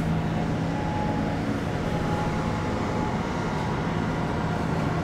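Steady machinery drone with a constant low hum, even in level throughout.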